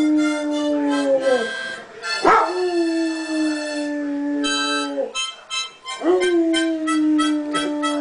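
A dog howling along to a harmonica: long held howls, each starting with a sharp upward swoop, one ending about a second and a half in, another starting just after two seconds and another about six seconds in. Behind them the harmonica plays chords, short repeated ones in the second half.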